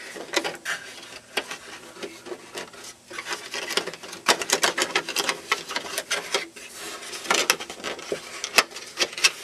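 A thin floorboard piece scraping and clicking against a model airplane's fuselage frame as it is turned sideways and worked down into the cockpit. Irregular clicks and short rubbing scrapes come throughout.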